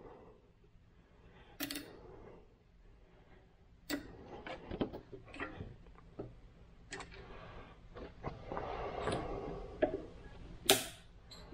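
Nylon zip ties being cinched around a motorcycle's steel exhaust hanger tubes: scattered small ratcheting ticks and plastic rubbing. Near the end comes one sharp snip as a tail is cut off with side cutters.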